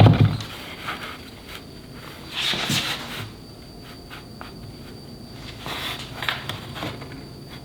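Workbench handling sounds: a knock at the start, then a few short scraping rustles and light clicks as wood and tools are moved about.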